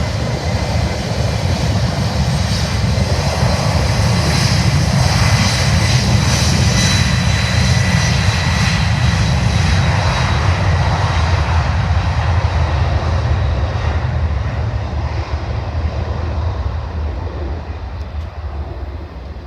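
Jet engines of a Boeing 767-300F freighter at takeoff power: a loud rumble with a steady high whine over it. The sound fades over the last several seconds as the aircraft moves away.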